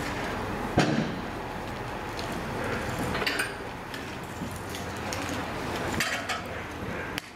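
Scattered metallic clinks and knocks, a handful of sharp ones spread over several seconds, over steady background noise.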